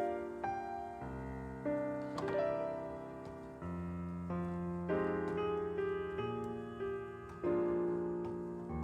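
Background piano music playing a slow run of held notes and chords, a new note or chord every half second to a second and a half.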